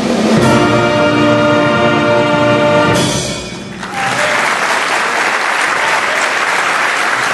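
Concert wind band holding the closing chord of an overture, brass to the fore, which cuts off about three seconds in and dies away in the hall. Audience applause breaks out about a second later and carries on steadily.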